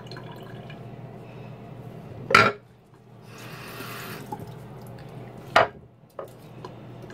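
Water from a tap running briefly into a small bottle cap, with two sharp knocks, about three seconds apart, and a steady low hum underneath.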